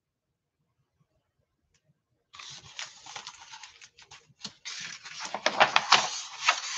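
Paper rustling and crackling as a picture book's page is turned and the book is handled close to the microphone, starting about two seconds in.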